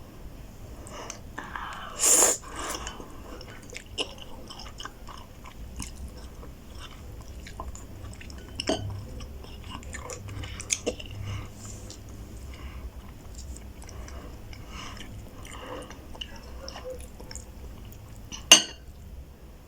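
Close-up eating sounds of roast beef ramen noodles: steady chewing and wet mouth noises. There is a loud noisy burst lasting about half a second about two seconds in, and a few sharp clicks scattered through, the sharpest near the end.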